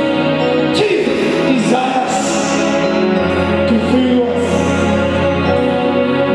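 Gospel worship music with singing over sustained chords and a held bass note that shifts about three seconds in.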